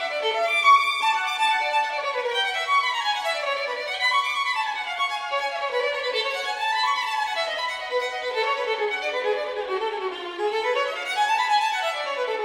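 Background music: a violin playing quick runs that climb and fall again and again.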